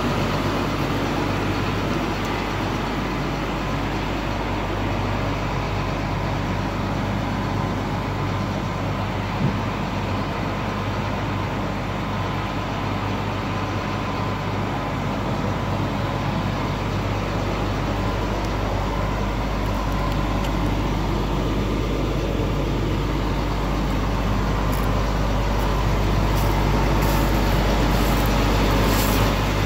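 Flatbed tow truck's engine running steadily with a low hum while its hydraulic bed is tilted down to the ground. A few faint ticks near the end.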